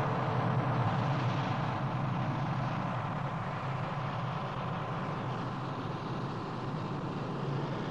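Steady low hum under an even hiss, a continuous drone that eases slightly over the seconds.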